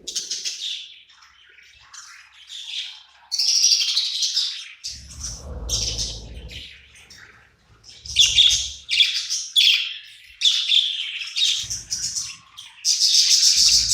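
Pet budgerigars chirping and chattering in short, rapid bursts throughout. A separate low rumble runs underneath from about five to six and a half seconds in.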